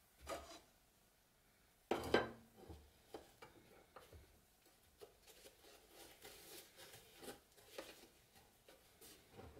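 Handling sounds from setting up a rust-removal bath in a plastic tub: a sharp knock about two seconds in as a wooden stick is laid across the tub's rim, then a run of small clicks and rubbing from gloved hands working a thin wire around the stick.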